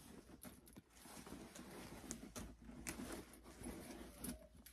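Faint rustling and scattered light taps as a fabric bag-organizer insert is pushed down into a leather Hermès Birkin 35 handbag and settled in place.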